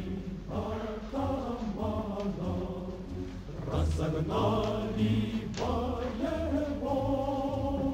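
Background music: voices singing together in long held notes, like a choir or chant.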